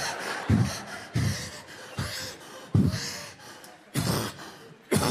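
A man panting and gasping heavily into a handheld microphone, about six loud breaths less than a second apart. The breathlessness is acted, miming someone too heavy to go more than a few metres.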